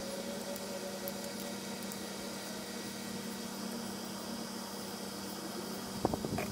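A steady low mechanical hum over a constant noisy background, with a few sharp knocks near the end.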